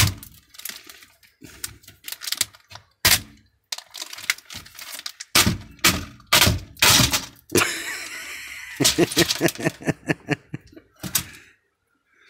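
Plastic cracking and snapping in a rapid, irregular series as an old Logitech PS2 keyboard is ripped apart by hand, its plastic rivets breaking away from the key plate. A brief rustle comes about two-thirds of the way in.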